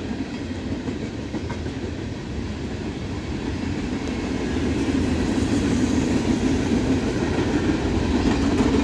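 Norfolk Southern freight train cars rolling past, steel wheels running over the rails in a steady rumble that grows louder in the second half.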